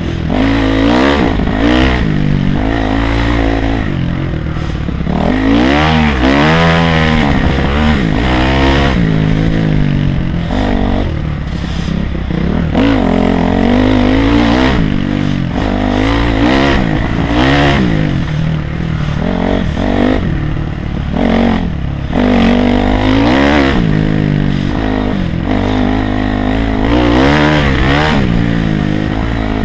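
Honda CRF250R's single-cylinder four-stroke engine revving up and down over and over as the bike is ridden hard along a dirt trail, heard up close from the rider's helmet.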